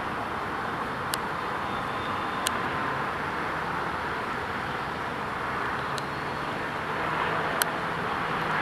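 Steady distant city traffic noise, a continuous hiss-like rumble, with a few brief sharp clicks scattered through it.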